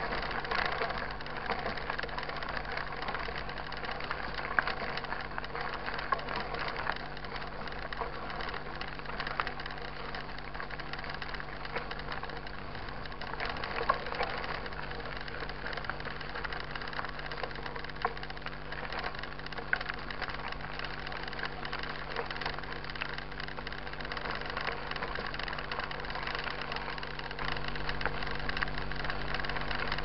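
Mountain bike tyres rolling over a gravel dirt road: a steady crunching hiss with scattered sharp knocks and rattles from the bike, over a steady low hum.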